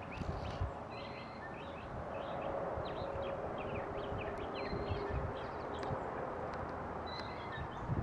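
Large jet aircraft passing at a distance, a steady engine drone that grows slightly louder, with many birds chirping over it.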